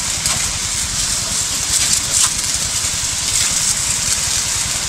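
Water jetting from a power-sprayer lance onto smouldering burnt bamboo, a steady hiss, with the sprayer's small engine running steadily underneath.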